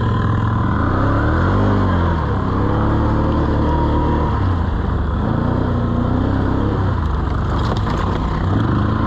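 ATV (quad) engine running under load, its revs rising and falling repeatedly as it is throttled on and off.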